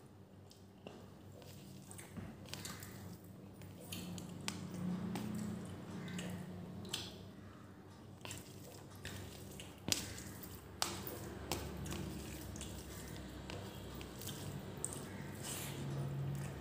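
Fingers gathering oily pulao rice on a stainless steel plate: scattered small clicks and scrapes of fingertips and rice on the metal, with soft squishing of the rice.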